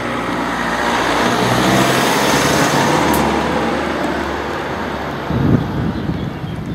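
A car driving past close by, its tyre and engine noise swelling over the first couple of seconds, then fading away.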